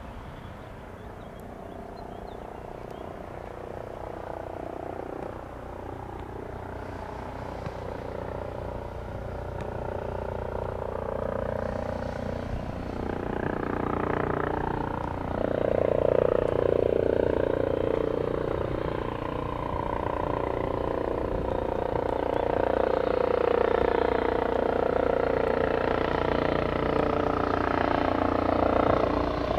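Eurocopter EC135 twin-engine helicopter approaching, growing steadily louder. Its rotor sound and turbine whine carry higher tones that slide up and down in pitch as it comes in.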